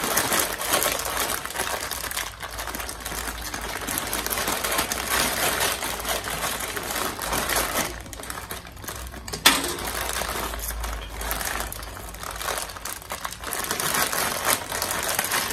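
Dry fusilli pasta rattling out of a crinkling plastic bag into a pot of hot water: a steady stream of small clicks and rustles, with one sharper click past the middle.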